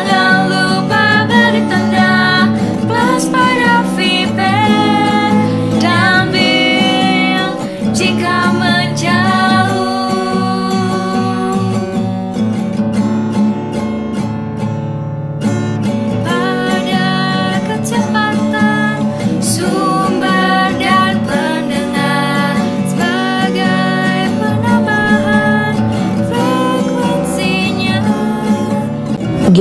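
Girls singing a song in Indonesian over acoustic guitar accompaniment, with a brief break about halfway through.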